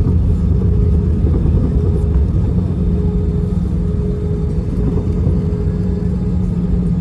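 Cabin noise of an Airbus A320 airliner: a loud, steady low rumble of engines and airflow with a constant hum running through it.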